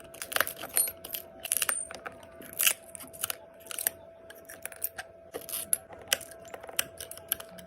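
Irregular sharp little clicks and crackles of shattered iPhone back glass being chipped and scraped away, with a faint steady tone underneath.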